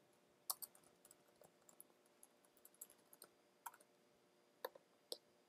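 Faint typing on a computer keyboard: irregular key clicks, a few together about half a second in, then scattered taps until shortly before the end.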